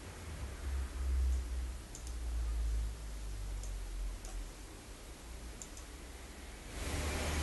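A few light clicks of a computer mouse button, some in quick pairs, over a low rumble. Near the end a steady hiss grows louder.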